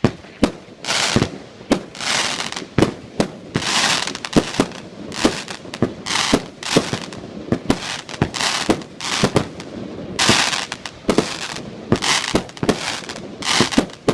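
Fireworks display going off in quick succession: sharp bangs, often several a second, between longer hissing bursts.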